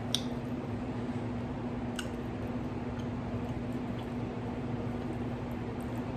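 Soft squishing and a few faint clicks as a fried oyster mushroom snack wrap is pulled open by hand, over a steady low hum of room noise.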